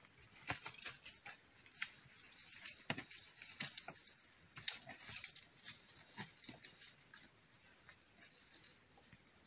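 Irregular crackling and rustling of dry leaves, twigs and stones being stepped on or brushed, with many small sharp clicks.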